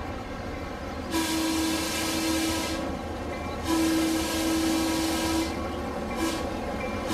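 Sound-equipped HO-scale model diesel locomotive blowing its horn: two long blasts and then a short one, the opening of the long-long-short-long grade-crossing signal. A steady low engine rumble runs underneath.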